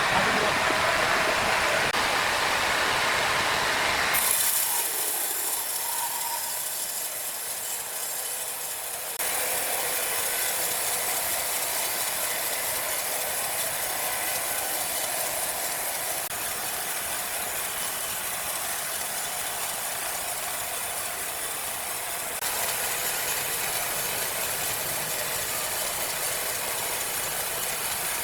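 Sawmill machinery running with a steady mechanical clatter. The sound changes abruptly three times, about 4, 9 and 22 seconds in.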